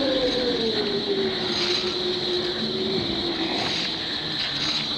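A spooky sound effect played back from a 1988 sound-effects cassette: a long, drawn-out tone that slowly falls in pitch over a noisy rumble.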